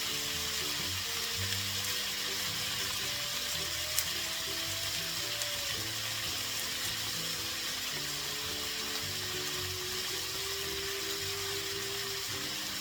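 Food sizzling steadily in a frying pan, with one sharp click about four seconds in, under background music.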